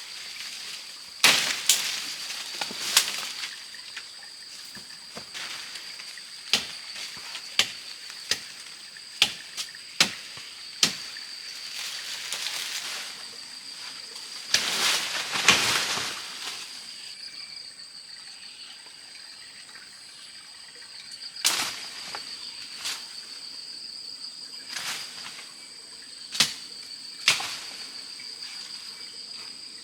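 Steady, high, slightly pulsing insect drone of crickets or cicadas. Over it come irregular sharp knocks and snaps, about fifteen in all, and a louder rustle about halfway through.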